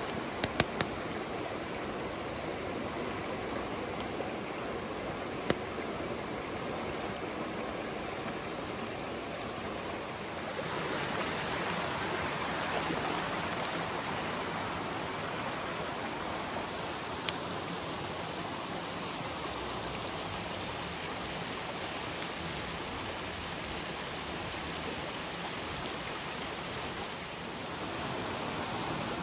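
Shallow mountain stream rushing over rocks: a steady rush of water that grows a little louder and brighter about ten seconds in. A few short, sharp clicks stand out near the start.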